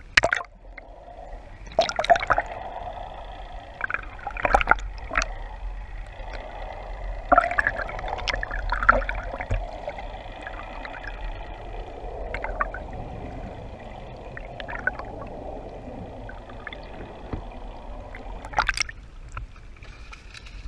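Seawater sloshing and gurgling around an action camera held at and just under the surface, heard through its waterproof housing, with several sharp splashes as it breaks the surface, one of the louder ones near the end. A steady low rumble runs underneath.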